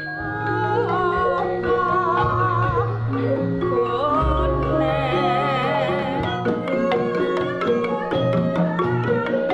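Javanese gamelan ensemble playing slowly: bronze metallophones ring over low held gong tones, with a wavering melodic line above.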